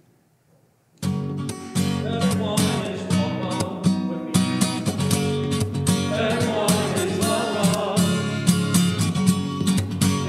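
Acoustic guitar strummed in a steady rhythm, starting about a second in. From about six seconds in, a small choir joins in singing the melody in unison over it.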